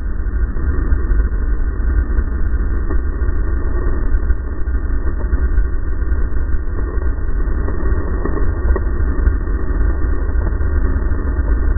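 Racing snowmobile engine running hard at speed, heard from a helmet camera with heavy wind buffeting on the microphone; steady throughout with no let-up.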